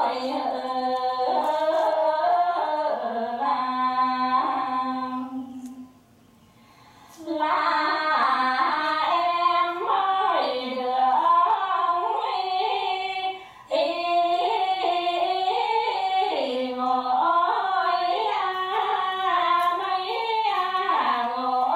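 Two women singing a Bắc Ninh quan họ folk song together, unaccompanied. They stop for about a second and a half roughly a quarter of the way in, and break very briefly again just past halfway.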